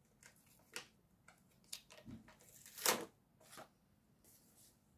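Clear plastic stamp sheet being handled and laid down on a desk: faint rustles and a few light clicks, the loudest about three seconds in.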